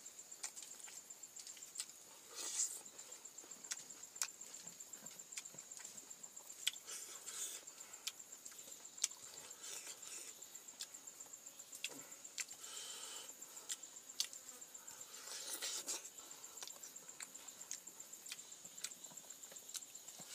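Close-up eating by hand: wet chewing, lip smacks and sharp little clicks, with short noisy bursts as mouthfuls go in. Under it runs a steady, high-pitched, finely pulsing insect trill.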